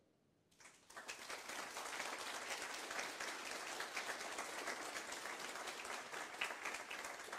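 Audience applauding: dense clapping that starts about a second in, holds steady and eases off near the end.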